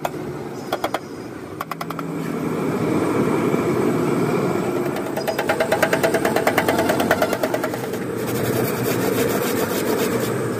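Rapid runs of sharp metal clicks from a hand tool worked against an old radiator's top tank and core, densest and loudest in the middle, over a steady engine hum.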